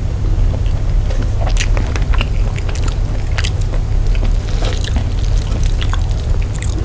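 Bare fingers squishing and mixing sauce-soaked rice on a banana leaf, with scattered short wet clicks and smacks and some chewing, over a steady low hum.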